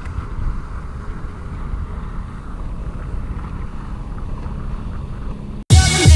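Wind buffeting the microphone over open lake water, a steady low rushing noise. Near the end it cuts off abruptly and loud music begins.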